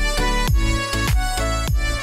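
Background music with a steady beat of deep drum hits under sustained tones.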